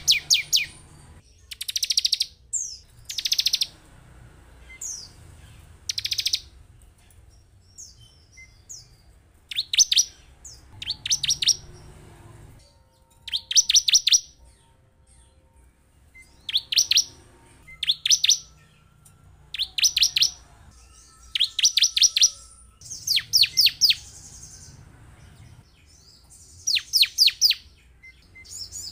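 Bar-winged prinia (ciblek) singing: short bursts of rapid, high, ticking notes, each under a second long, repeated about every one to two seconds.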